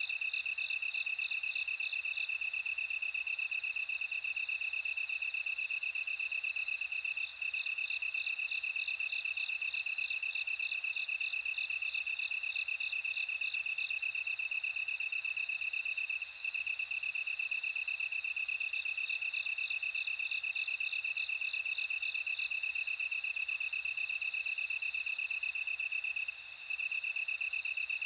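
Bell crickets chirping in chorus: a steady pulsing trill, with higher ringing trills above it that come and go in phrases of one to two seconds.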